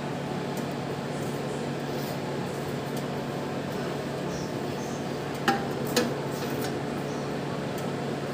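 Two short clinks about half a second apart as a metal grill stand is set down on the glass turntable inside a microwave oven, over a steady low hum.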